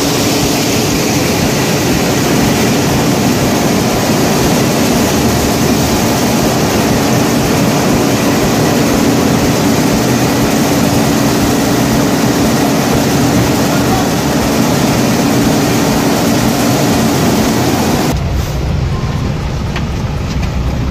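Rice mill machinery running: a loud, steady mechanical din with a constant hum. About three seconds before the end it cuts to the low rumble of a truck engine heard from inside the cab.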